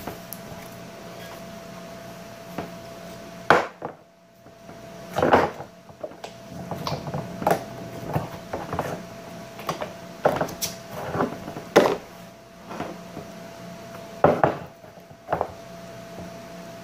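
Slime being stretched, squished and pressed into a glass bowl by hand: short, sharp pops and squelches at irregular intervals, a second or two apart. A steady hum runs underneath.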